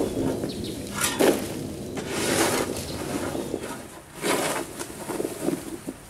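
Dried ears of corn being shovelled and tossed onto a pile, the cobs clattering and rustling in several separate bursts.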